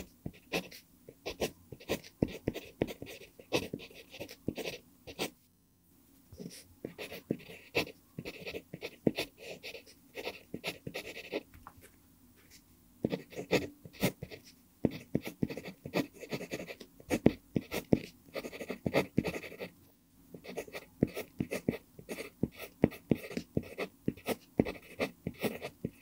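Pentel PG5 mechanical pencil with an mpingo wood barrel writing Korean characters on lined paper: the lead scratches in many quick short strokes, with three brief pauses.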